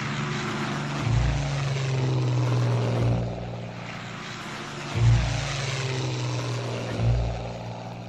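Embraer A-29 Super Tucano's turboprop and propeller running as it taxis, a steady rushing sound. Music with a deep beat about every two seconds is laid over it.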